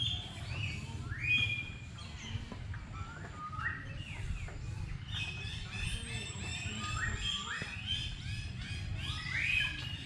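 Several small birds chirping: short rising chirps, several a second and overlapping one another, over a low steady rumble.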